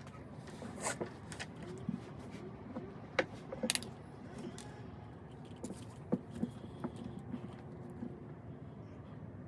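Scattered light metallic clicks and clinks from handling and loading a muzzle-loading rifle-musket, the sharpest pair about three and a half seconds in; no shot is fired.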